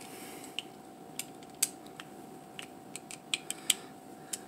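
Irregular small metallic clicks and ticks from a precision screwdriver working a screw into the handle of an out-the-front knife, over a faint steady hum.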